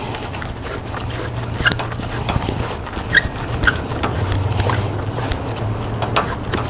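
Fire hose nozzle being screwed onto a hose's male coupling: scattered light metallic clicks and short pings. A steady low hum runs underneath.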